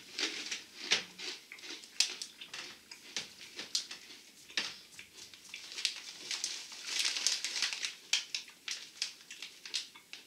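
Hard pretzel bites being crunched while chewing, a run of sharp crackles, with the snack bag crinkling as it is handled and opened, densest about seven seconds in.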